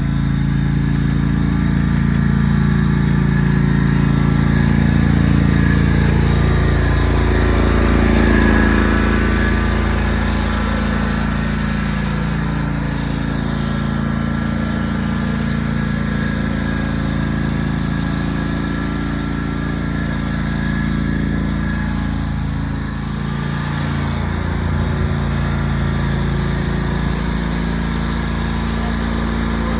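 Riding lawn mower engine running steadily and really loud while being driven, its pitch shifting briefly a couple of times.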